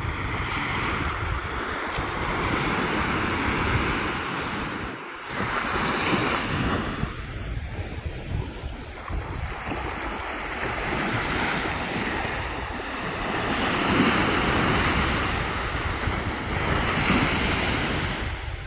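Small ocean waves washing up onto a sandy shore, the surf swelling and easing as each wave runs in and draws back. Wind buffets the microphone with a low rumble.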